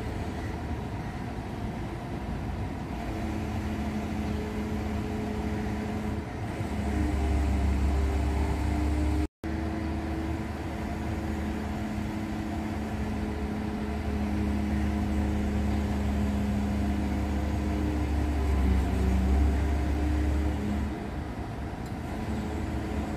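Diesel engine of heavy construction machinery running with a steady hum and low rumble. It gets louder for a few seconds about a third of the way in and again through the second half. The sound cuts out for a split second at about nine seconds.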